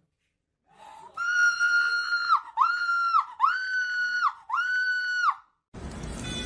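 Four long, high-pitched wailing cries, each held at one steady pitch and dropping at the end, with silence between them.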